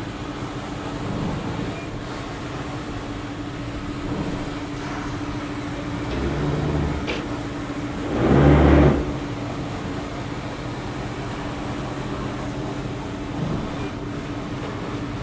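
Motor yacht's machinery idling with a steady hum, held alongside a pontoon during mooring. A short low rumble surges about six seconds in and a louder one about eight seconds in, lasting under a second, with a single click between them.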